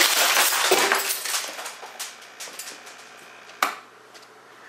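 Aftermath of an air cannon shotgun blast: steel BBs, ball chain and broken radio pieces clattering and bouncing on a concrete floor. A dense clatter at first thins out to scattered clicks and rattles, with one sharp knock a little after three and a half seconds in.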